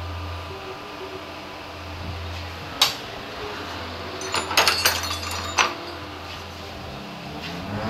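Workshop handling noises over a steady low hum: one sharp click a little under three seconds in, then a short run of sharp clinks and clatter about halfway through.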